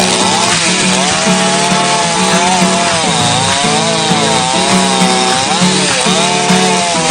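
87cc two-stroke gasoline chainsaw running at high revs while cutting wood. Its engine pitch sags and recovers again and again as the chain bites under load.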